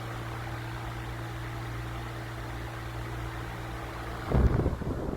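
1988 Galaxy 2151 16-inch table fan running steadily on medium speed, its bearings freshly re-oiled: a motor hum under a rush of air. About four seconds in, the fan's airstream buffets the microphone in loud, irregular gusts.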